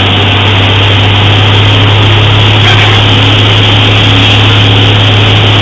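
Light aircraft's engine and propeller droning steadily with a strong low hum, heard inside the cockpit in flight.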